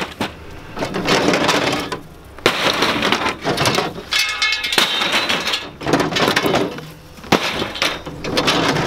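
Scrap metal clanking and scraping as pieces are dragged out of a pickup truck bed and thrown onto a scrap pile, with several sharp metal clanks.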